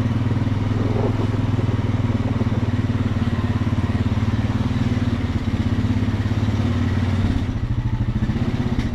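Honda Rubicon ATV's single-cylinder engine running at low speed as the quad reverses, easing off about seven seconds in.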